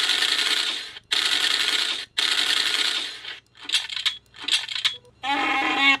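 Submachine-gun sound effect played by the Arduino blaster prop's MP3 player through small speakers: three long bursts of automatic fire about a second each, then several shorter bursts with a ringing tone in them, and a burst with a hum in it near the end.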